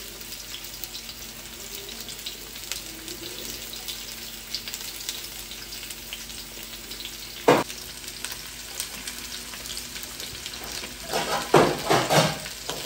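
Onion, zucchini and broccoli sizzling in a steel wok over a gas burner as more vegetables are dropped in. There is one sharp clank about seven and a half seconds in and a short burst of clatter near the end.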